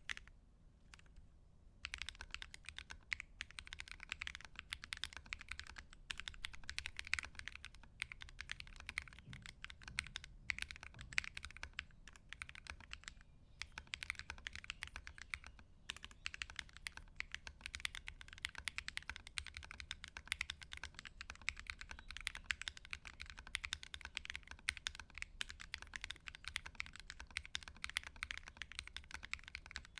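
Mechanical keyboard typed on steadily while resting on a fabric desk mat: a fast, uneven patter of key clicks. The typing starts about two seconds in and breaks off briefly twice around the middle.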